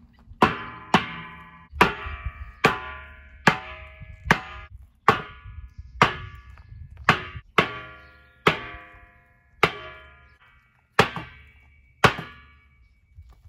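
Hammer driving nails into the wooden boards of a landing: about fourteen sharp blows, roughly one a second, each with a brief metallic ring.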